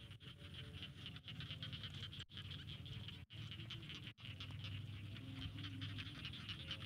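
Rice-paddy animal chorus: a steady, high, rapidly pulsing chirr of calling insects and frogs, with a low hum underneath. The sound drops out briefly three times.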